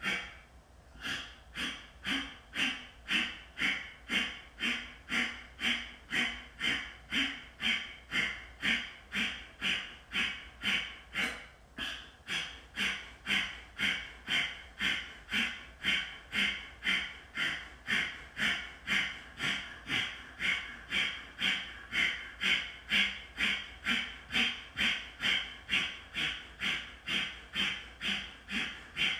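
Kapalabhati breathing: rapid, forceful exhales out through the nose, each pumped by drawing the navel in, in an even rhythm of about two sharp puffs a second. There is a brief pause about a second in.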